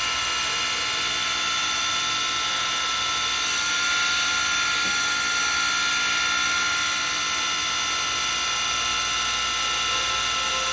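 Wood lathe running steadily with a high whine while a chisel cuts the spinning blank, peeling off shavings.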